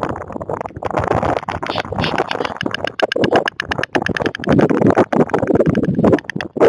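White stork clattering its bill: a fast run of clacks that goes on with brief breaks.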